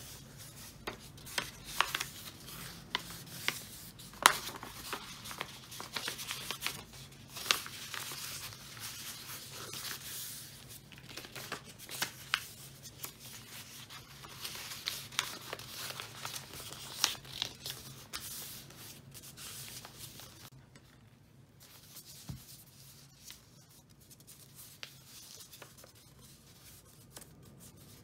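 Wrapping paper rustling and crackling as it is folded and creased by hand around a gift box, with sharp crisp crackles among the rubbing. It grows quieter about two-thirds of the way through.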